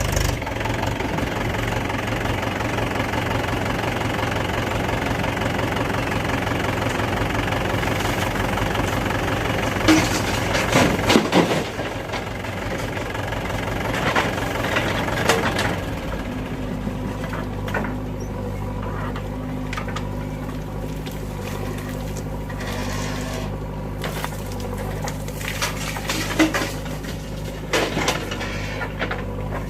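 JCB 3DX backhoe loader's diesel engine running steadily while it digs, with a few metal clanks about ten seconds in and again a few seconds later. The engine then drops to a lower, steadier note.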